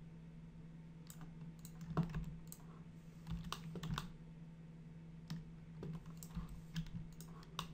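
Irregular clicks of a computer mouse and keyboard, some in quick clusters, over a low steady hum.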